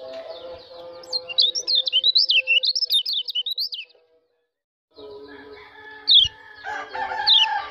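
White-eye (pleci) singing a fast, unbroken run of high chirping notes for about two and a half seconds. The song stops abruptly, and after a second of silence comes a few sharp falling chirps over steady lower tones.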